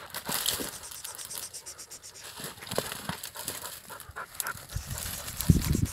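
A dog panting close by, rapid breaths in and out through the open mouth, with a few dull low thumps near the end.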